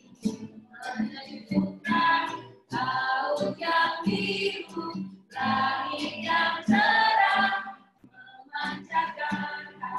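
Singing voices, possibly a small group, in phrases of a couple of seconds separated by short breaths.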